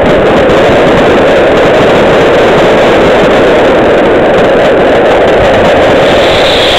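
Fireworks display recorded so loud that it overloads the recording: a dense, steady wash of noise. Near the end a falling whistle begins.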